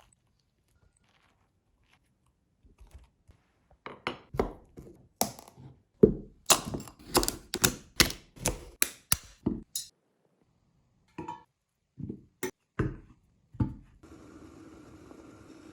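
Knife cutting through a raw pumpkin on a cutting board: a run of sharp thunks and cracks, about two a second at their busiest, then a few single knocks. A short steady hum comes in near the end.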